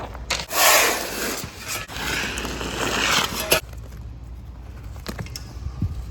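A loud, rough scraping noise lasting about three seconds, then a few light knocks and clicks.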